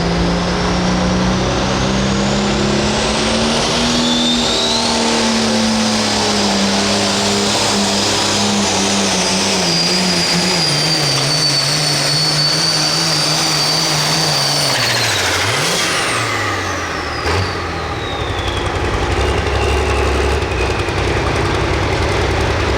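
Turbocharged hot farm class pulling tractor's diesel engine running flat out under load, with a high turbo whistle over the engine and the engine note slowly sagging as it pulls. About two-thirds of the way through the throttle comes off: the engine note drops and the turbo whistle winds down, followed by a single knock.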